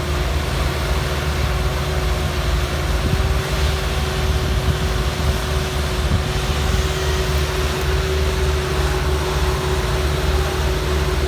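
Heavy road-construction machine engine running steadily at a constant speed, a low rumble with a steady whine over it.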